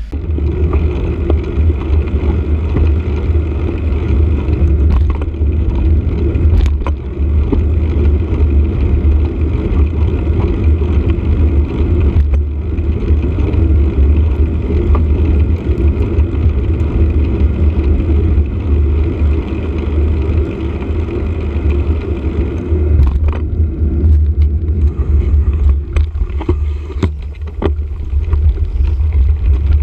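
Wind buffeting and road rumble on the microphone of a camera carried on a moving bicycle, a steady low rumble with a few brief knocks from bumps.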